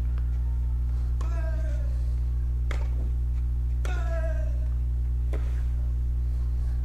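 A tennis rally on a clay court: a racquet hits the ball about every one and a half seconds, and every other shot comes with a player's short falling grunt. A steady low hum runs underneath.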